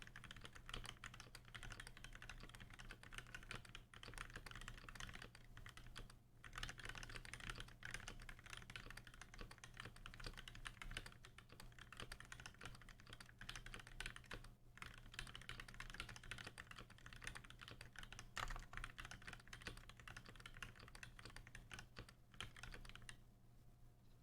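Continuous fast typing on a custom mechanical keyboard with lubed Gateron Black Ink linear switches in a brass plate and GMK keycaps. It breaks off briefly a few times, and the typing stops about a second before the end.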